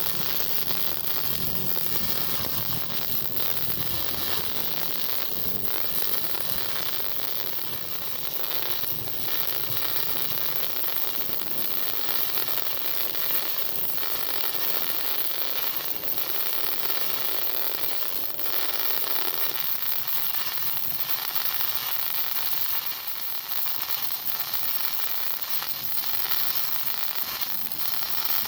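GMAW (MIG) welding arc burning steadily with a continuous crackling sizzle as a weld bead is laid.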